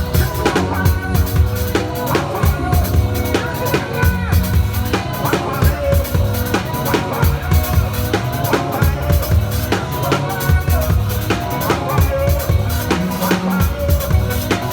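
Live gospel praise music driven by a drum kit playing a steady beat on bass drum and snare, over a heavy bass line and other band instruments.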